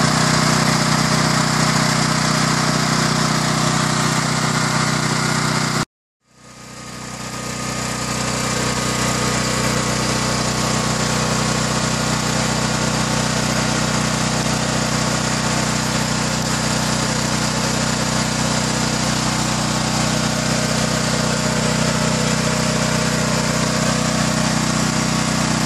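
Champion 7000/9000-watt dual-fuel portable generator's single-cylinder four-stroke engine running steadily at constant speed, quite noisy, on propane for the first few seconds. About six seconds in the sound drops out briefly, then the same steady running fades back up and holds.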